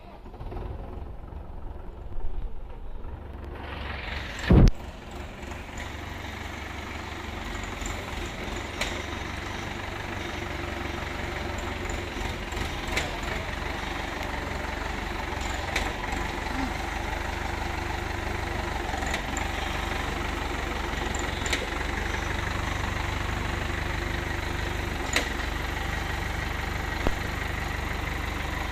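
Forklift engine starting and then running steadily, a low rumble with a loud thump about four and a half seconds in and a few light clicks and clanks as the truck is driven and its forks handled.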